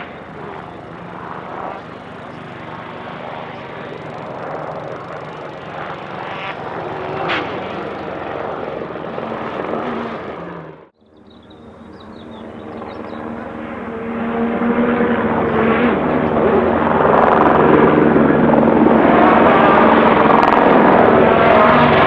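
A rally car's engine approaching on a stage. After a sudden cut about eleven seconds in, a helicopter's rotor and an approaching rally car's engine grow steadily louder and are loudest over the last several seconds.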